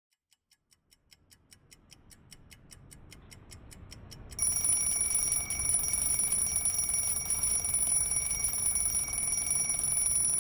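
Alarm clock: fast, even ticking that grows louder over the first few seconds, then a steady ringing that starts suddenly about four seconds in and keeps going.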